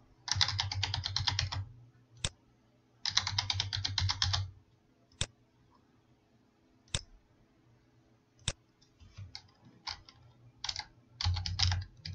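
Typing on a computer keyboard: two quick runs of keystrokes, each a little over a second long. Single mouse clicks fall between them, and a few scattered keystrokes come near the end.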